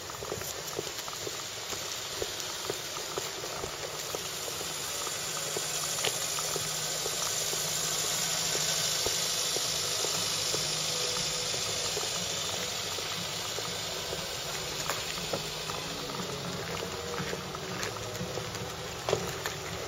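Footsteps of someone walking on a town pavement, faint regular steps over a steady rushing background noise that swells gently towards the middle and eases off again.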